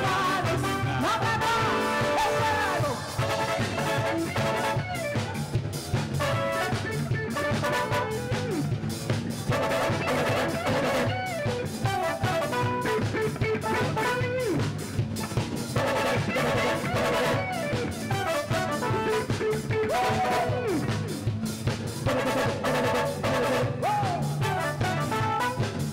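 A live band playing an instrumental passage of a Brazilian song, with drum kit, electric bass and keyboards keeping a steady beat.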